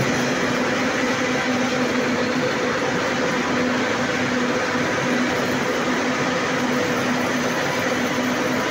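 Rolling mill machinery at the cooling bed and roller table running: a loud, steady mechanical rumble with a constant low hum.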